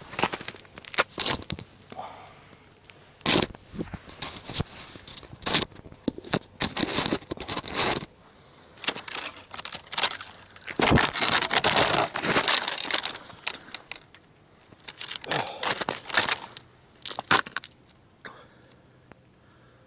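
Broken ice and slush at a fishing hole crunching and scraping in irregular bursts, stopping near the end.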